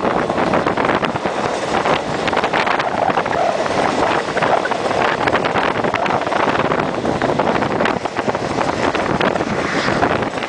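Wind rushing over a microphone held out of the window of a moving Chihuahua al Pacífico (Chepe) passenger train, over the train's running noise with frequent rattles and clicks.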